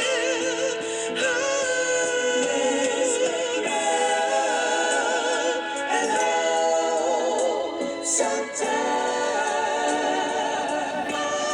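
Music: a slow oldies soul record playing, with several voices holding sustained harmony notes that waver with vibrato.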